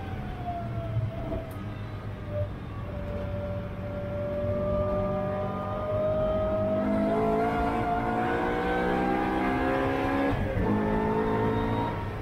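Track car's engine heard from inside the cabin. The revs fall off the throttle into a corner, then climb steadily under power. Near the end there is a sharp drop in pitch at an upshift, and the engine pulls on.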